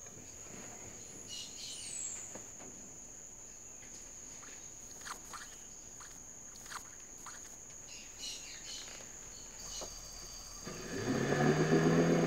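Rainforest ambience: a steady high-pitched insect trill with a few short bird chirps and faint clicks. Near the end a louder, low, wavering pitched sound comes in.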